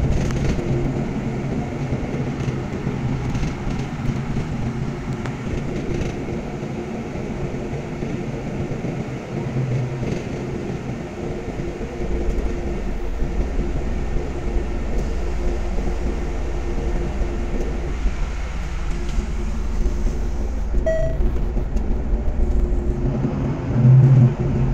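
City bus in motion, heard from inside the passenger cabin: steady engine and road rumble, the low rumble growing stronger about halfway through. A short low bump comes near the end.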